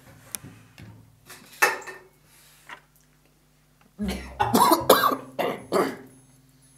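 A man coughing after swallowing canned-tuna liquid: one cough about a second and a half in, then a fit of several loud coughs about four seconds in.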